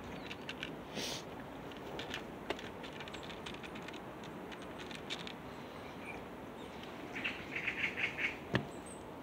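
Faint scattered clicks of cats crunching dry cat food, with a small bird's quick run of high chirps about seven seconds in.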